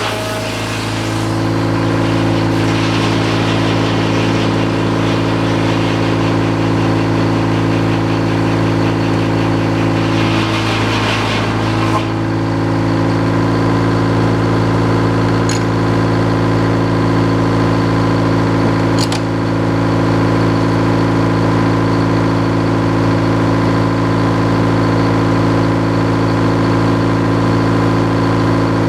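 Sawmill engine running steadily, with the rougher hiss of the blade cutting through wood for about the first twelve seconds, which stops abruptly as the cut ends. Two short clicks come later.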